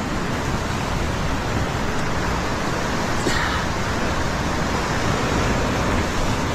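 Ocean surf breaking and washing over rocks below: a steady, continuous rush of white noise.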